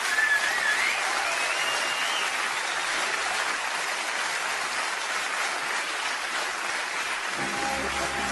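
Audience applauding steadily after a comedian's sign-off, with a wavering whistle rising in pitch over the first two seconds. Music comes in near the end.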